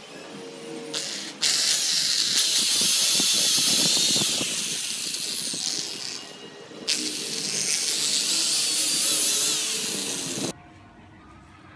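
Small high-speed rotary carving tool working wood, in two long runs that start and stop abruptly, its high whine wavering as the load changes.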